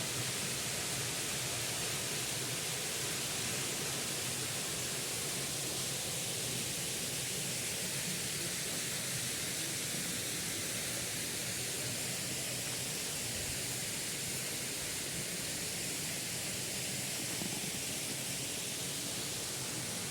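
Waterfall, with the water rushing steadily and evenly.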